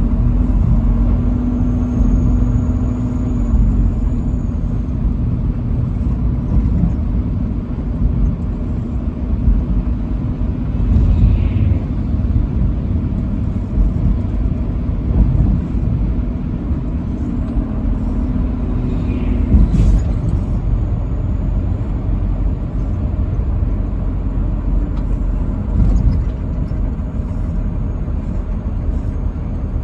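Steady low rumble of road and engine noise from a vehicle driving at highway speed, with a faint steady drone coming and going and a brief click about two-thirds of the way through.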